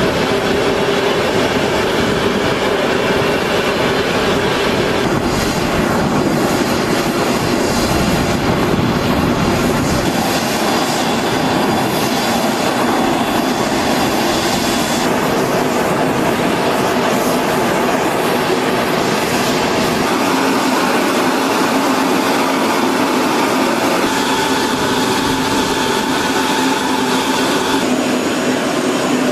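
Steady jet aircraft engine noise from the C-17 Globemaster III transports on the flight line: a dense, even rumble with a few faint steady tones. Its character shifts slightly at a few points.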